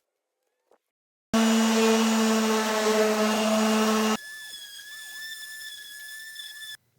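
Erbauer electric orbital sander running on painted timber: after a second of silence it starts loud and steady for about three seconds, then drops abruptly to a quieter, steady high whine that cuts off near the end.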